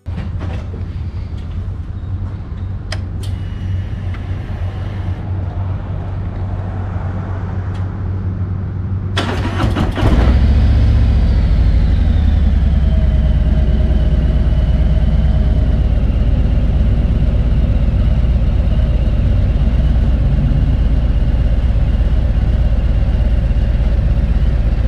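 Harley-Davidson touring motorcycle's V-twin engine running at idle. About nine seconds in there is a short rattling burst, and after it the engine runs louder and steady.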